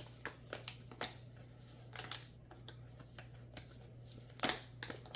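Packaging crinkling and rustling in short crackles and clicks as it is worked open by hand, with a louder crackle near the end.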